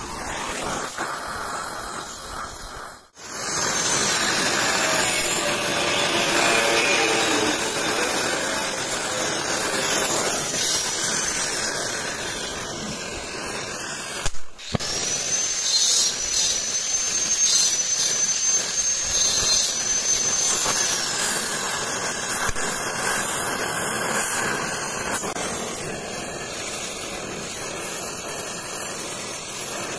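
Gas cutting torch flame hissing steadily as it heats steel red-hot inside a small makeshift furnace, with two brief drop-outs.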